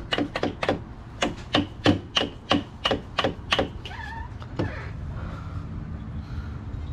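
Rubber mallet tapping lightly and quickly, about three taps a second, to seat the new transmission fluid temperature sensor harness connector into the automatic transmission case. The tapping stops a little past halfway, with one last tap about a second later, leaving a low steady hum.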